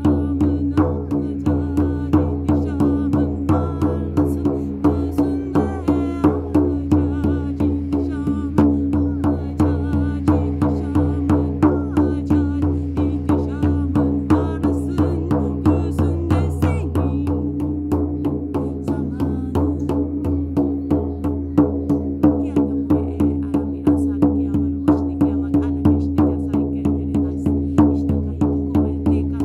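Meditative music: a shaman drum beaten steadily, about three beats a second, over a sustained low drone, with a wavering higher line above.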